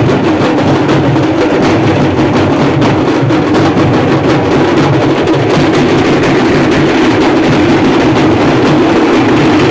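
Several large folk drums with hide heads beaten with sticks in a fast, steady rhythm.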